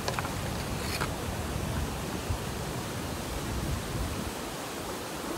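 Wind blowing over the microphone: a steady rushing noise with an uneven low rumble.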